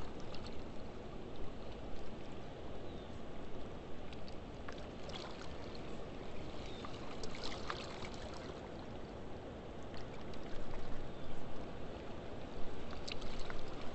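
Steady rushing of water pouring through a river spillway, with a few faint clicks scattered through it.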